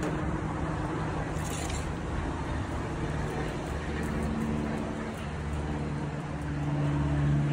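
A steady low mechanical hum with a few held low tones, swelling louder near the end.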